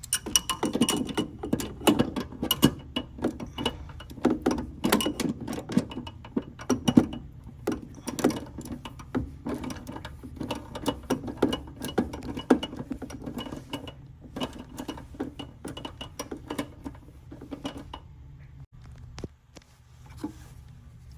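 Socket wrench on a long extension working a tight 1/4-inch bolt inside a furnace cabinet: rapid metallic clicks and clanks, several a second. They die away about 18 seconds in.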